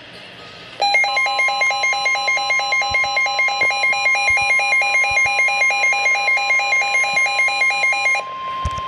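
NOAA Weather Radio warning alarm, a steady tone of about 1050 Hz starting about a second in, the signal that a warning message follows. Over it a harsh electronic alarm pulses about four times a second until near the end.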